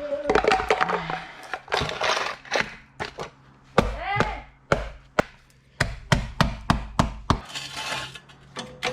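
A run of sharp knocks and clicks from metal car-lifting gear, a floor jack and jack stands, being set up and worked under a car. The knocks are scattered at first and come at about three a second in the second half, with a short creak about four seconds in.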